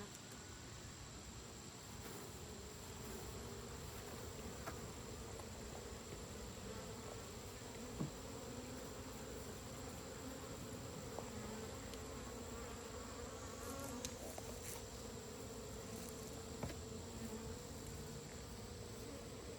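Honey bees buzzing around an open hive: a steady hum that wavers slightly in pitch, with a few light clicks.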